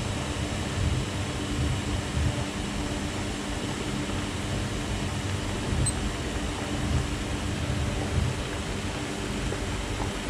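Large pot of water at a full rolling boil on an induction hob: a steady, churning low bubbling over the even hum of the hob's cooling fan.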